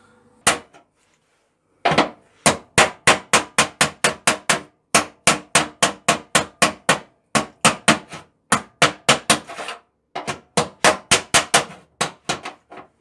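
Hammer striking the steel jacking point and sill on the underside of a car: one blow, then long runs of quick, even blows at about four a second, with short pauses between runs.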